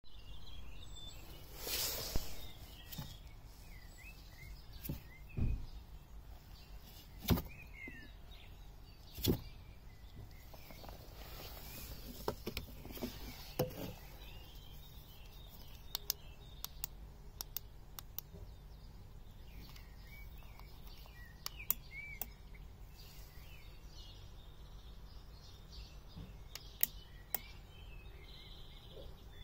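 Faint steady low hum with scattered clicks and ticks, and birds chirping now and then.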